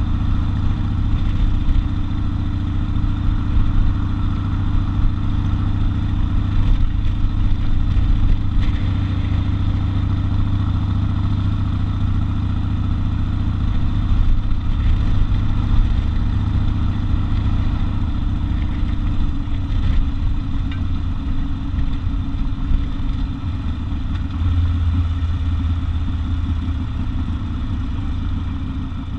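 Harley-Davidson XL 1200 Custom Sportster's air-cooled V-twin engine running steadily, its tone shifting slightly about two-thirds of the way in.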